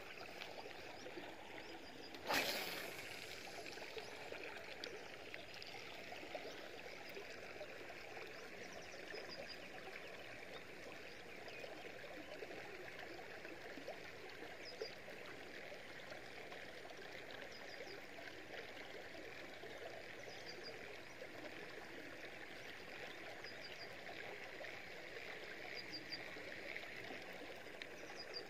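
Steady rush of moving river water, with one sharp knock about two seconds in and faint short high chirps now and then.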